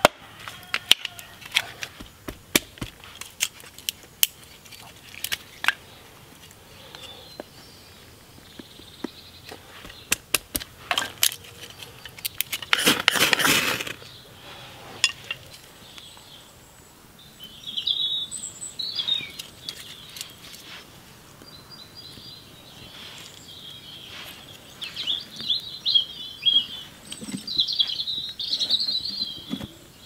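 A hatchet splitting kindling on a wooden chopping stump: a run of sharp knocks and wood cracks. About 13 seconds in comes a loud noisy burst lasting over a second, and in the second half birds chirp in short bursts.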